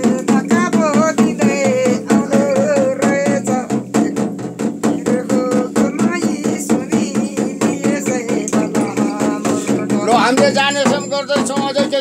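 A large frame drum beaten with a curved stick in a rapid, steady rhythm, under a woman's chanting voice that wavers in pitch.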